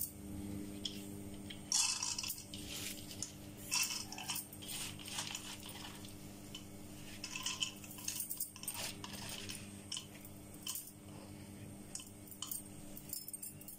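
Soaked, drained moong dal being scraped by hand out of a plastic colander into a plastic bowl: soft, irregular rustles and taps of wet lentils against plastic.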